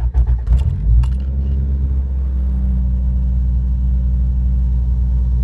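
Toyota 4A-GE smallport 1.6-litre twin-cam four-cylinder cranking on the starter for about a second, then catching and settling into a steady fast idle near 2,000 rpm, heard from inside the car. A cold start with the cold start injector unplugged, which it takes with no trouble.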